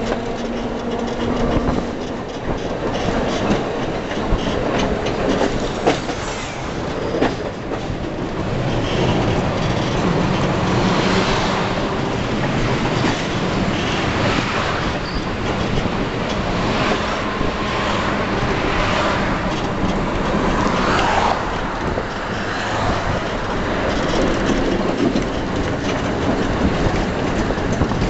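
Historic tram running along its track: a steady rumble of steel wheels on the rails, with now and then a sharp click from the rail joints.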